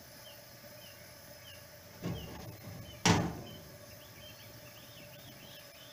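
Hand handling noise: a soft rustle about two seconds in, then a sharp knock a second later, the loudest sound. Underneath, a Coleman white-gas stove burner runs with a steady hiss, flaring a large yellow flame, the sign of dirty burner plates and old fuel, and small birds chirp throughout.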